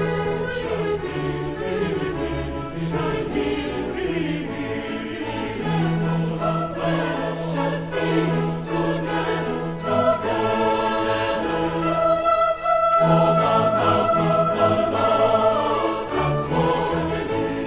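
Choir singing with orchestral accompaniment, in long held chords.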